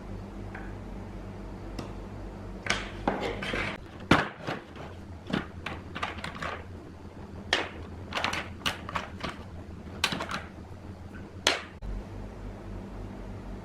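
Irregular clicks, taps and short scrapes of hard parts and tools being handled on a workbench during amplifier repair, over a steady low electrical hum.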